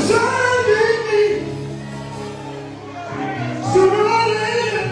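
Live gospel group performing: voices singing two drawn-out phrases, about the first second and again near the end, over a steady low held chord from the band.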